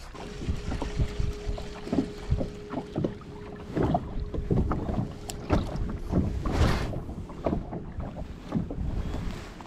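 Electric trolling motor running with a steady hum, under gusting wind buffeting the microphone.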